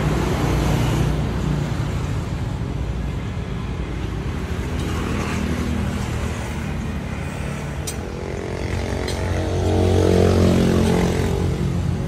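Road traffic noise with a steady low rumble; a motor vehicle passes about eight seconds in, its engine note rising and then falling away.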